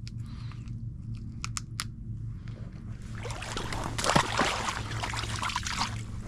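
A few light clicks and knocks, then from about three seconds in water splashing and sloshing at the side of a kayak, loudest about four seconds in, over a steady low hum.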